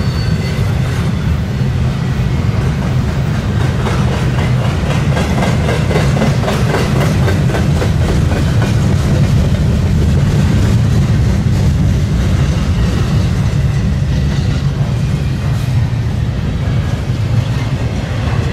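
Double-stack intermodal container train rolling past: steady rumble of steel wheels on the rails, with the repeated clicking of wheels passing over rail joints.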